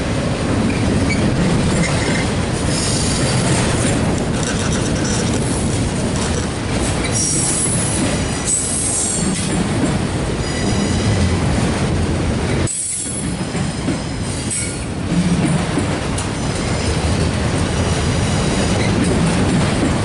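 Autorack freight cars rolling past at close range, with a steady rumble of steel wheels on rail. Short high wheel squeals break in every few seconds.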